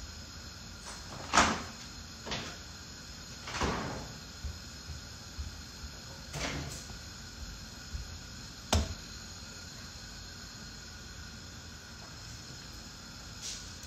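Kitchen handling sounds: about five separate knocks and clatters of cupboards and cookware being moved, the loudest about a second and a half in and a sharp knock near nine seconds, over a steady faint hum.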